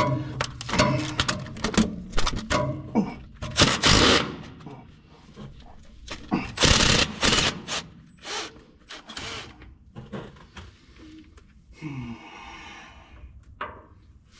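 Tool work on a bolt of a Minneapolis-Moline GVI tractor's rear end being taken out to drain the gear oil: a run of rapid metallic clicks and knocks, with two louder, harsher bursts about a second long around four and seven seconds in.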